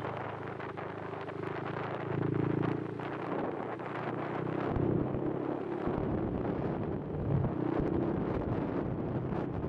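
Riding a Honda Supra X 125 FI: wind buffeting a helmet microphone over the bike's 125 cc single-cylinder four-stroke engine running. The engine note swells a few times as the throttle changes.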